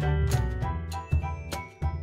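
Background music with a bass line and percussive beats.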